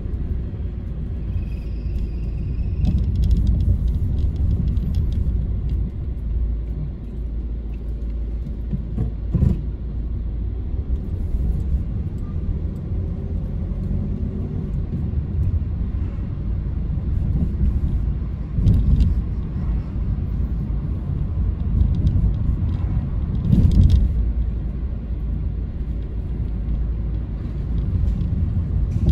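Car driving along a road: a steady low rumble of engine and tyre noise, broken by a couple of short sharp knocks.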